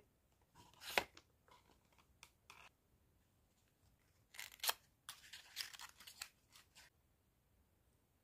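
Small paperboard cosmetics carton being handled and opened. There is a sharp tap about a second in, then scraping, tearing-like rustles of the cardboard flap and sleeve from about four to seven seconds in as the lip tint is slid out.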